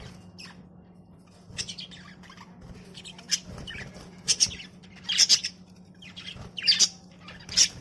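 Budgerigars chirping and squawking in short, sharp calls that come in bursts about once a second, the loudest near the middle and the end, over a low steady hum.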